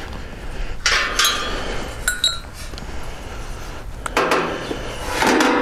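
Galvanized steel bars of an IBC tote cage clinking and clanking as a cut section is handled and set back into place on the frame: a few separate metallic knocks, one ringing briefly, with the loudest clatter near the end.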